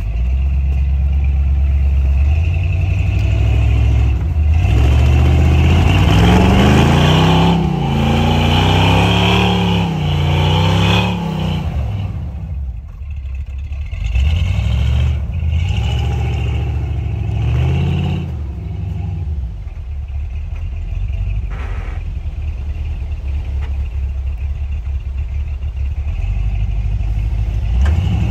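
Chevrolet K5 Blazer's engine revving up and down in repeated bursts as it works through deep snow, its large mud tires spinning and churning snow.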